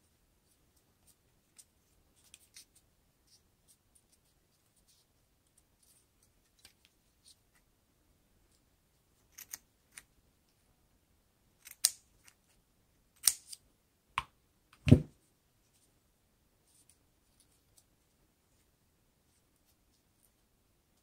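Scissors snipping through a strip of construction paper: faint scattered ticks at first, then a run of sharp snips from about halfway in, followed by a single louder thump about three-quarters of the way through.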